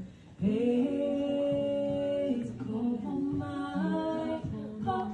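A wordless voice humming or singing long held notes in a slow melody, entering just before half a second in.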